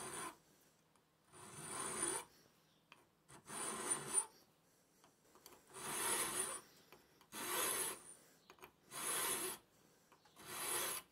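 Flat file cutting a drive notch into the end of an unhardened steel screwdriver bit clamped in a vise. About seven separate filing strokes, each under a second, with short pauses between them.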